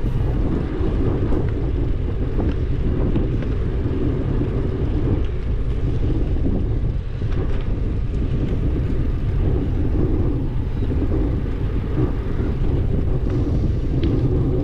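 Wind buffeting the microphone of a camera on a moving bicycle: a steady low rushing noise without breaks.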